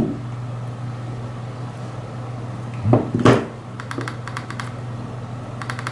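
Quick runs of small sharp metal clicks, twice, as parts of a rebuildable tank atomizer are handled and turned, over a steady low hum, with one brief louder sound about three seconds in.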